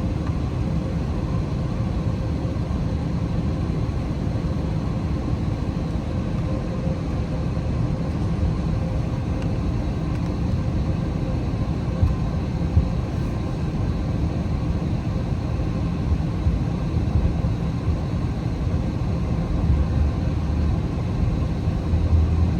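Steady low rumble of an airliner's jet engines and rushing air heard inside the cabin, with faint steady tones over it. Two brief knocks come about halfway through.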